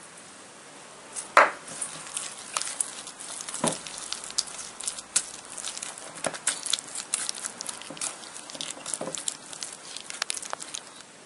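Silicone spatula mixing thick sweet potato paste in a stainless steel bowl: irregular scraping and small clicks of the spatula against the metal, with one louder knock about a second and a half in.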